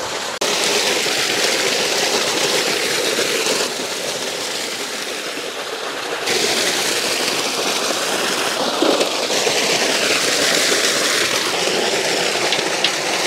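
Water splashing and pouring over ribbon fish in an aluminium pot, and a shallow stream trickling over rocks: a steady rush of water that changes abruptly every few seconds.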